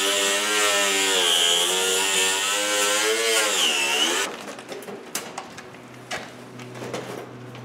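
Ryobi angle grinder cutting through the plastic cabinet of a projection TV, its motor whine wavering and dipping in pitch as it bites into the soft, melting plastic. The grinder stops about four seconds in, followed by light knocks from handling the plastic cabinet.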